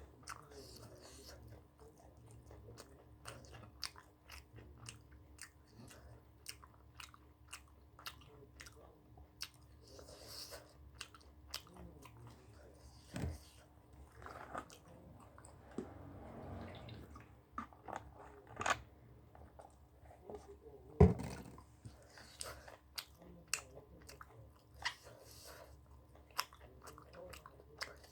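A person chewing and biting food close to the microphone: many small wet clicks and crunches, with a few louder knocks now and then. A faint steady hum lies underneath.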